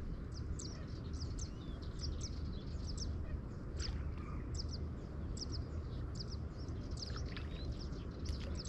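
Small birds chirping, many short high chirps repeated over and over, over a steady low rumble.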